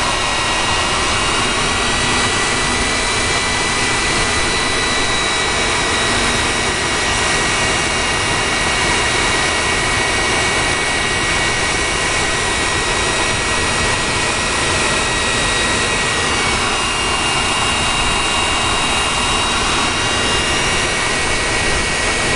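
Westinghouse J34 turbojet running steadily on a test stand: a loud, even rushing noise with a steady high-pitched whine on top.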